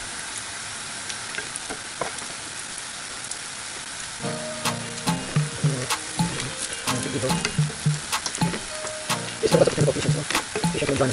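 Green plantain pieces shallow-frying in oil: a steady sizzle, with light clicks of a spatula in the pan. About four seconds in, background music with a steady beat comes in over the sizzling.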